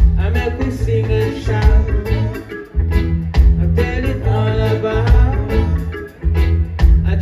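Live reggae band playing, with a heavy bass line, drums and guitar; the bass drops out briefly twice, about three and six seconds in.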